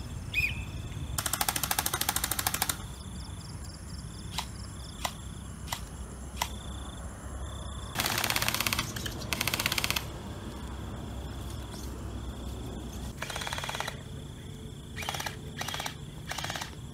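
Electric gel blasters firing full-auto, a fast rattling stream of shots in several bursts of about one to one and a half seconds. Single shots and shorter bursts fall in between.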